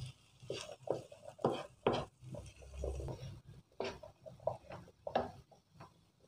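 Wooden spatula stirring and scraping a pan of boiled chickpeas with chopped onion and mango in a nonstick frying pan, in irregular strokes about every half second to second.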